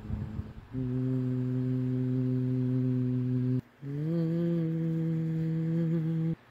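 A person humming two long, low held notes. The second note is slightly higher and slides up a little as it starts, after a brief break just under four seconds in.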